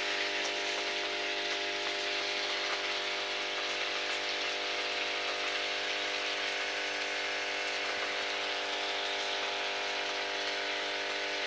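Sliced potatoes frying in oil in a steel pan on a gas stove: a steady, even sizzle, with a faint steady hum of several tones underneath.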